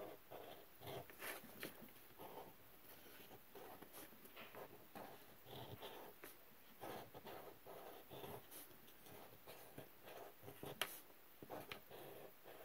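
Faint short strokes of a felt-tip permanent marker drawing on crumpled brown paper-bag paper, with one sharper click near the end.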